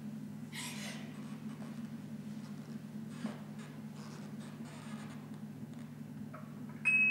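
Soft rustling and scuffing of dancers shifting their bodies and bare feet across a stage floor, a few brief swishes over a steady low hum. Just before the end, bell-like mallet-percussion music notes begin.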